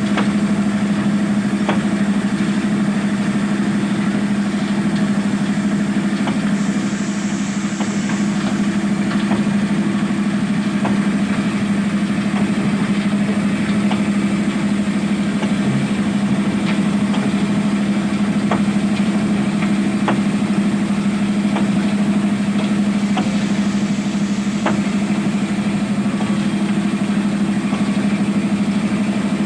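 Diesel engine of a Zoomlion ZE215E excavator running at a steady speed, with a few light knocks scattered through.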